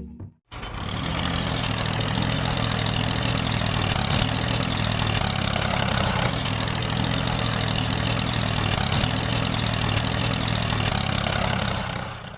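An engine running at a steady, even speed. It starts abruptly about half a second in and fades out at the very end.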